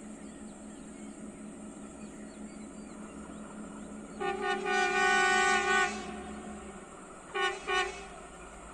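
Railway horn sounding one long blast of about two seconds, then two short blasts, over a steady engine hum that stops shortly before the short blasts.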